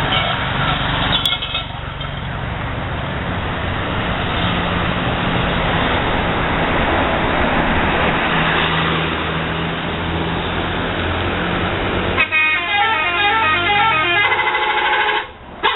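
Bus engines and road noise from passing tour buses, then about twelve seconds in a bus's musical multi-tone horn plays a quick stepping tune for a few seconds and starts again near the end.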